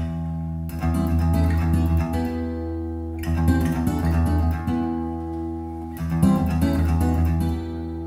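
Recorded song's guitar intro played through Canton Ergo 90 DC loudspeakers: strummed and plucked guitar over a steady bass line, with no vocals yet. The strums come in three runs, with short pauses at about three seconds and again at about five to six seconds.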